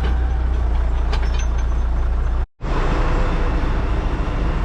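Tractor engine running at a steady speed, a heavy low drone, cut off for a moment about halfway through and then carrying on.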